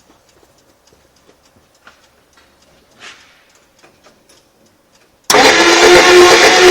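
Faint scattered ticks, then just over five seconds in a 1958 Plymouth 318 poly V8 cuts in suddenly and loudly. It runs steadily with a steady whine in it: the rare bad engine noise the owner is showing.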